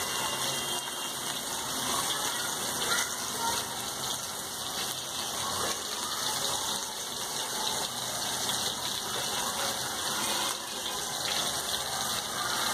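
Rava-coated mackerel shallow-frying in hot oil on a high flame: a steady sizzle.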